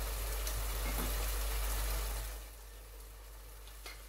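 Onion and pepper sauce sizzling and bubbling in a pot on the hob, a steady hiss that falls much quieter about two seconds in. A few faint taps.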